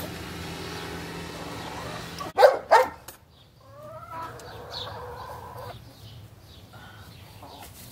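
Chickens calling: two loud, short calls close together about two and a half seconds in, then a drawn-out call lasting about two seconds.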